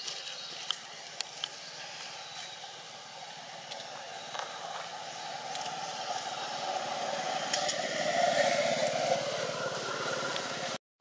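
Outdoor background noise: a steady hiss with a few faint clicks near the start. It slowly grows louder, is loudest about eight seconds in, and then cuts off suddenly just before the end.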